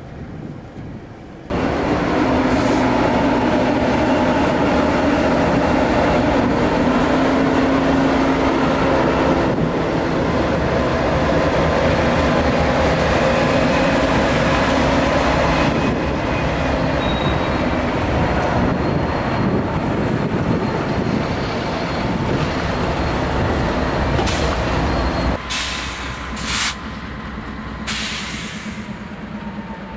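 Diesel freight locomotives passing close by, engines running and wheels rolling on the rails, in several clips joined by sudden cuts. A few short sharp clanks come near the end.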